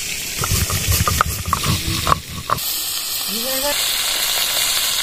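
Knocks and handling noise, then from about halfway a steady sizzle as pieces of chandana hilsa fry in mustard oil in a steel wok, with the spatula stirring them.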